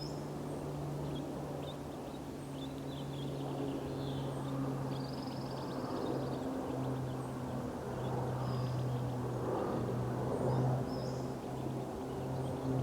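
Short, high bird chirps and peeps scattered over a steady low drone.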